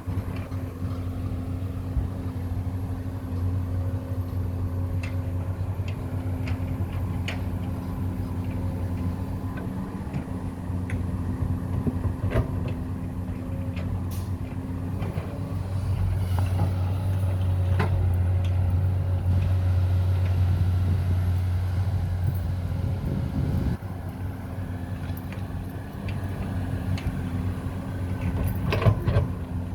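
Excavator running steadily, with scattered clicks and knocks, and a stretch of slightly louder running toward the middle.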